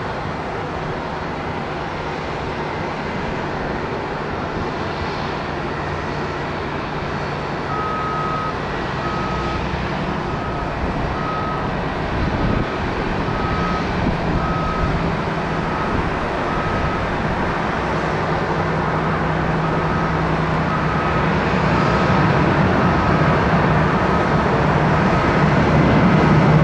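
Jet engine noise of a Boeing 737-700 on approach, a steady low rumble and hum that grows louder. From about a third of the way in, a vehicle's reversing beeper beeps steadily, slightly faster than once a second.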